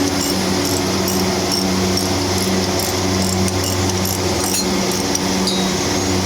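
Steady mechanical hum of running machinery, its low drone rising and falling about once a second, with scattered light clicks and taps.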